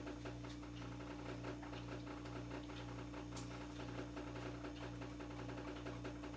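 Spatula stirring and scraping a thickening condensed-milk cream in a small glass bowl, a soft uneven run of small ticks over a steady low hum.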